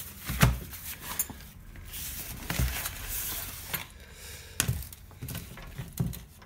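Rustling of a fabric drawstring bag being opened and a plastic wire winder wound with antenna wire pulled out of it, with about six short knocks of the winder being handled against a wooden table.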